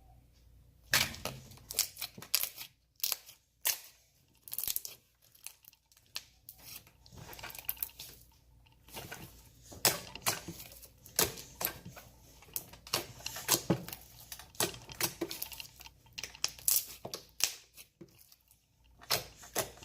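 Clicky slime being squeezed and stretched by hand, giving off a dense, irregular run of sharp clicks and crackling pops.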